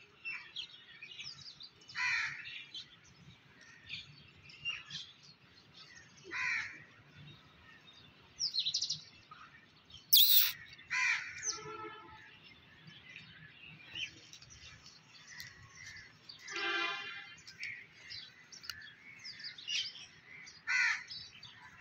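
Birds chirping at irregular intervals, with two longer, harsher calls, one about midway and one near the end.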